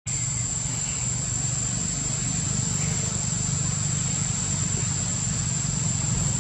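Steady outdoor background noise: a low rumble with a constant high-pitched whine over it.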